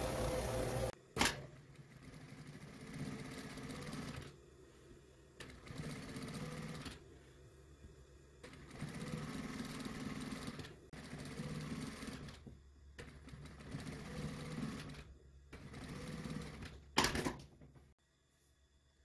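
An overlock machine running for about a second, then an industrial single-needle lockstitch sewing machine stitching knit fabric in several short stop-start runs with brief pauses between them. A sharp click follows the overlocker, and a sharp knock comes near the end.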